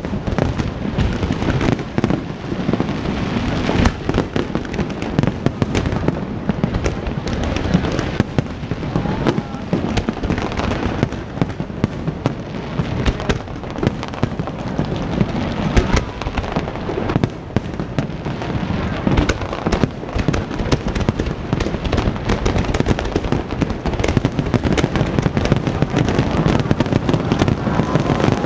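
Aerial fireworks bursting in dense, rapid succession: a continuous barrage of bangs and crackles with no pause.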